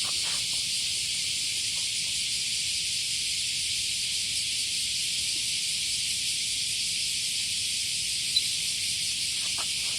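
Cicadas singing: a steady, unbroken, high-pitched buzz that does not let up.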